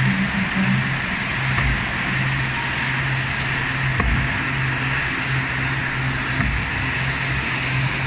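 Rotary veneer peeling line running: a steady hum and hiss from its electric motors and conveyor rollers, with a few faint low knocks.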